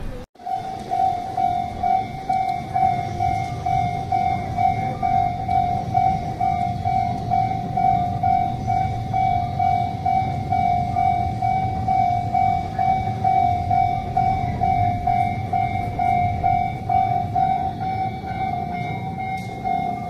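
Japanese railway level-crossing warning bell ringing in a steady, rapidly repeated ding, with the low rumble of a Series 281 Haruka electric train passing over the crossing underneath.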